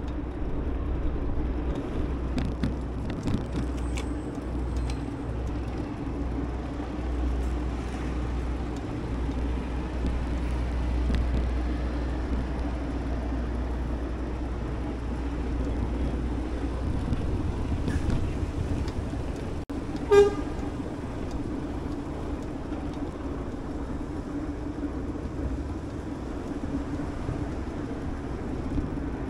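Steady wind and road noise from riding a bicycle along city streets, with a low rumble that eases after about seventeen seconds. About twenty seconds in comes a single short horn toot, the loudest sound.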